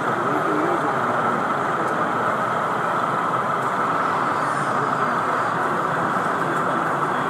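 Steady, even background noise of a large exhibition hall, a continuous rushing hum, with a faint voice in the first second.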